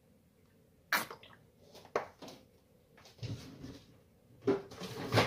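Kitchen handling sounds: a glass oil bottle and stainless steel pot being knocked and set about at a stovetop. A sharp knock comes about a second in and another a second later, then a run of clatter and knocks near the end.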